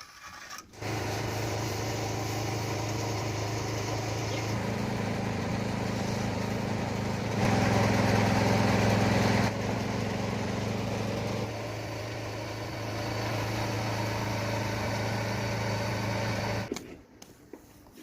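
A machine's motor running steadily with a low hum. It starts about a second in, steps louder and quieter a few times, and cuts off near the end.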